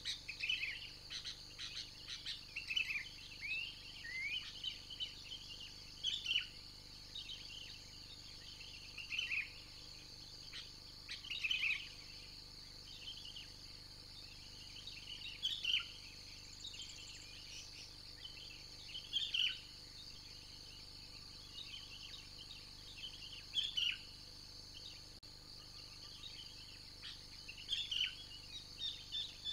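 Birds chirping and singing in short, separate calls every second or two, over a steady high-pitched insect drone.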